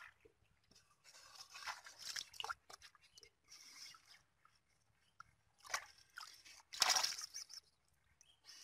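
Fish splashing and flapping in shallow muddy water and in PVC pipe traps: irregular wet splashes and squelches, the loudest about seven seconds in.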